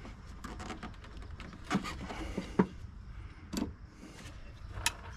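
Small clicks and knocks of hand tools and wires being handled while wiring a relay, with a few sharper snaps about two, two and a half, three and a half, and five seconds in, over a low steady rumble.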